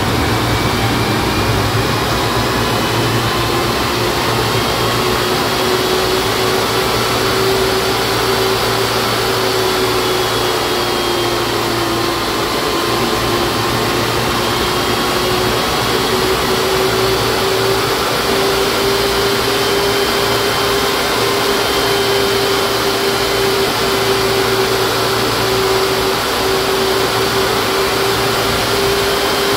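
J34 turbojet engine running at low power on a 70/30 diesel-gasoline mix: a steady rushing roar with a whine, the whine's pitch dipping slightly about ten seconds in and then settling a little higher.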